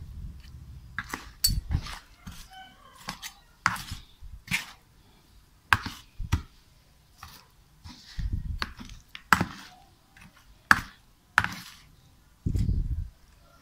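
Large metal spoon knocking and scraping against a plastic bowl while tossing catfish in sauce: irregular sharp clicks, with a few dull thumps.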